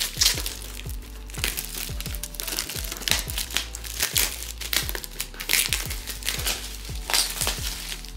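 Clear plastic shrink wrap crinkling in repeated bursts as it is peeled off a box and crumpled.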